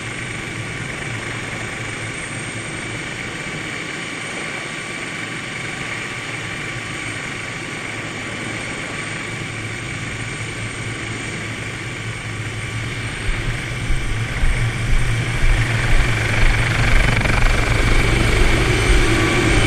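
Helicopter running steadily, a constant mechanical noise with a thin high whine through it. About thirteen seconds in it gets louder, with an uneven low rumble.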